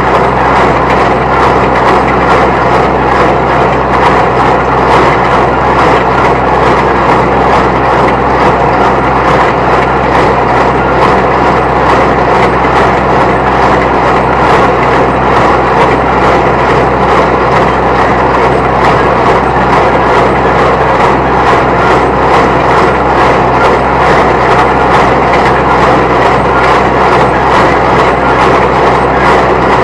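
Small square baler working behind a compact diesel tractor under PTO load: a steady engine note with an even run of knocks from the baler's moving parts.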